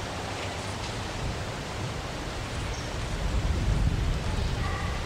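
Steady hiss with a low rumble that swells about three seconds in, like wind buffeting the microphone of an old outdoor recording.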